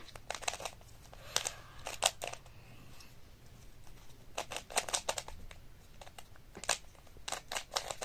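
Plastic stickerless 3x3 puzzle cube being turned by hand: its layers clack in quick clusters of clicks with short pauses between turns.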